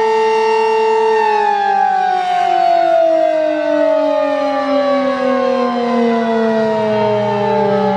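Sentry 15V2T-B two-tone outdoor warning siren sounding loud. It holds a steady two-tone chord for about a second, then begins winding down, its pitch falling steadily as the rotor coasts.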